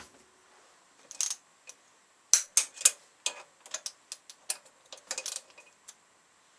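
Socket ratchet clicking in short, irregular runs while the cylinder-head nuts of a Dnepr motorcycle's flat-twin engine are run down.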